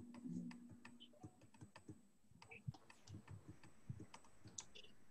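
Faint, irregular clicking of a computer keyboard, over near-silent room tone.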